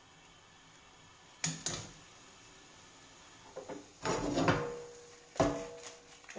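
Metal cookware and utensils clinking and scraping on a gas hob: two light clicks, then about four seconds in a scrape and a sharp clank that leaves a short ringing metal tone.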